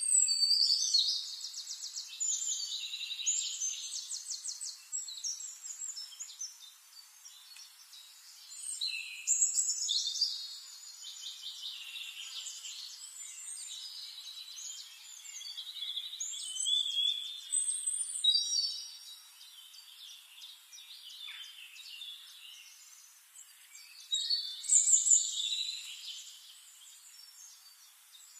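Birds singing: phrases of high chirps and fast trills, about four of them, with quieter gaps in between.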